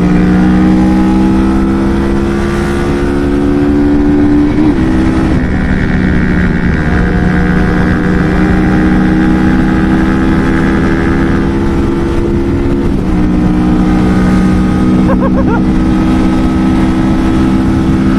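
Kawasaki Vulcan S parallel-twin motorcycle engine running steadily at highway cruising speed, with brief wobbles in pitch about four and a half and thirteen seconds in, under a steady rush of wind on the microphone.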